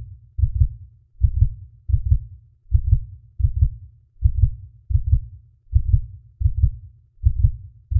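Heartbeat sound effect: deep double thumps, lub-dub, repeating evenly at a little over one beat a second.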